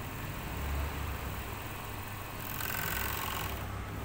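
Industrial overlock machine running as fabric is sewn through it: a steady low motor hum, with a brief higher-pitched whirr for about a second a little past halfway.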